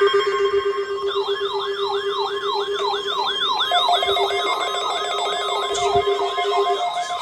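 Several weather radios' electronic alert alarms sounding at once. A steady low tone is joined about a second in by fast siren-like up-and-down sweeps, about three a second, and a second pulsing tone comes in about halfway.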